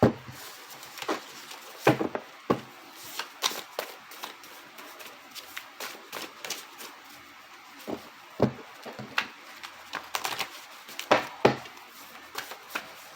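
Cards being shuffled and handled: irregular crisp snaps and taps of cards against each other, a few louder slaps among them.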